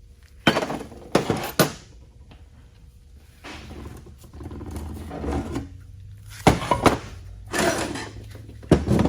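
Metal transfer case parts being handled on a workbench: a string of clanks and knocks, with a few sharp hits about half a second in and a cluster more near the end, and scraping and rustling in between.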